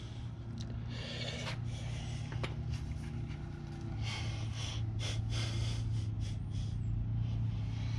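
A vehicle engine running with a steady low hum, growing a little stronger about halfway through, with scattered rustles and light clicks over it.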